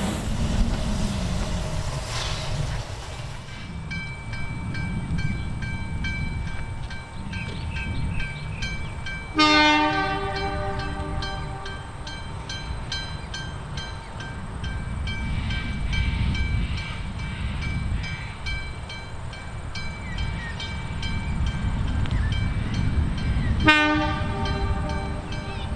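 Two blasts of a locomotive whistle approaching: a blast of about a second roughly ten seconds in, then a shorter one near the end, over a low rumble.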